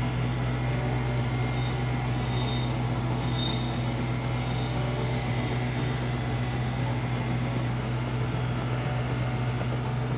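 Belt grinder running steadily, with a strong motor hum and an even abrasive hiss as a steel chef's knife blade is ground against the moving belt.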